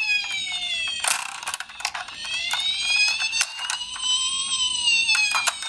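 Electronic wailing siren of a toy ambulance minicar, its pitch sliding slowly down, then rising and falling again, with sharp clicks and plastic clatter over it.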